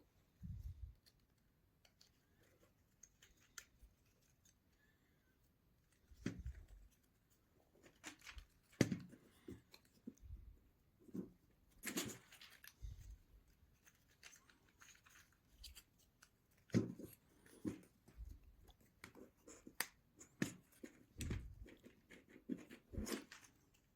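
Faint handling of small basswood model parts: irregular light taps, clicks and soft knocks as thin wooden planks are fitted into place on the deck.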